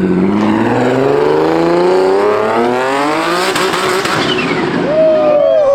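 A car engine accelerating hard, its pitch rising steadily for about three and a half seconds. Near the end a second high tone sweeps downward as another vehicle goes by.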